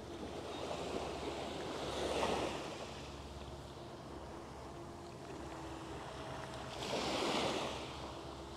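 Small waves washing up on a pebble beach, the surf swelling twice: about two seconds in and again near the end. A faint steady low hum runs underneath.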